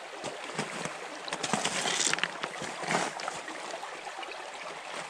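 Stream water running and splashing, with irregular small splashes and a louder stretch of splashing about one and a half to two seconds in.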